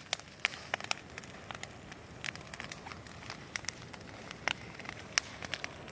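Large bonfire crackling: irregular sharp pops and snaps of burning wood over a faint steady rush of flame.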